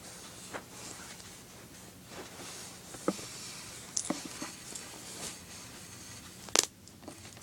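Objects being handled and rummaged through during a search for a toy dog's collar: soft rustling with scattered small clicks and knocks, and one sharper click near the end.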